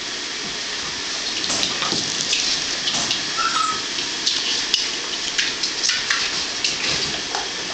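A steady rushing hiss runs under many light clicks and scuffles of puppies playing on a pen floor with their toys. A brief high squeak comes about three and a half seconds in.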